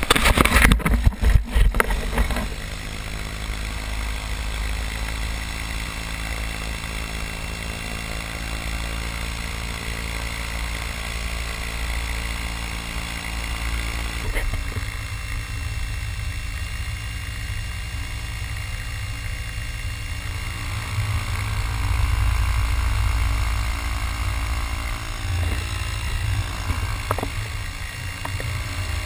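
Paracell V2.5 electric paramotor in flight: the electric motor and spinning propeller hum steadily under heavy wind rumble on the microphone. Loud irregular buffeting in the first couple of seconds, and the low rumble grows heavier about halfway through.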